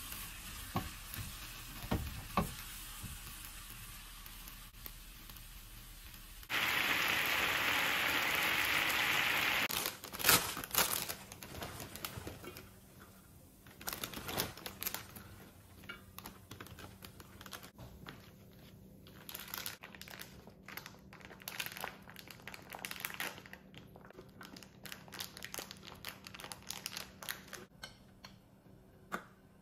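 Plastic food bags crinkling and rustling, with scattered light clicks and taps, as bagged salad greens and edamame are dished onto plates. Before that, a loud steady hiss lasts about three seconds.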